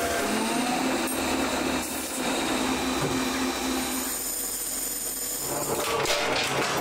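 Metalworking machinery running in a factory: a steady mechanical hum with a thin high whine, and some clattering about six seconds in.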